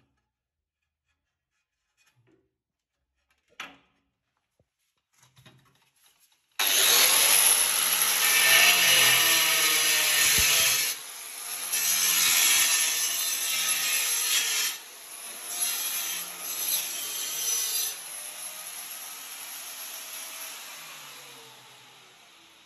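Near silence with a single click, then about six and a half seconds in an angle grinder starts cutting ceramic tile: a loud, steady grinding with a high whine. It drops off briefly twice and fades away over the last few seconds.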